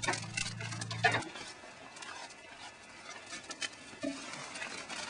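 Wood fire crackling and popping in the firebox of a wood-burning pottery kiln as it is stoked, with a dog giving short whines in the first second. A steady low hum cuts off about a second in.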